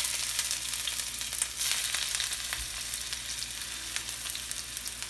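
Chopped red onion sizzling in hot oil in a steel frying pan: a dense hiss, loudest at first and easing slightly, with scattered crackling pops.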